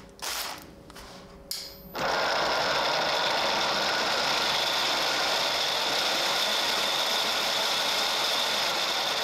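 3D-printed plastic shredder, driven by a 775 DC motor through a printed gearbox, starting up about two seconds in and then running empty. It makes a steady whir of motor and plastic gears.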